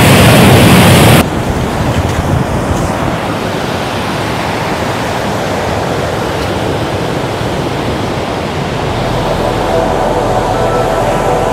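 Steady rush of sea surf and wind. A louder rush cuts off abruptly about a second in, leaving a softer steady wash, and soft ambient music fades in near the end.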